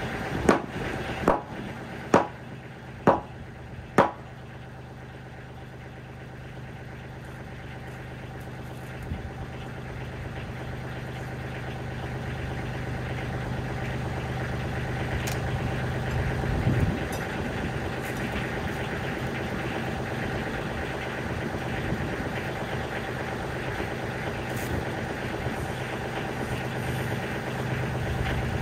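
Five sledgehammer blows on the timber wall framing, about a second apart in the first four seconds. Under them a compact tractor's diesel engine idles steadily and grows a little louder through the rest.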